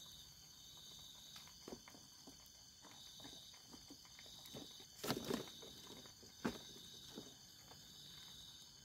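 Crickets and other night insects chirring steadily. Scattered clicks, knocks and rustles come from camping gear being handled and packed away, loudest about five seconds in.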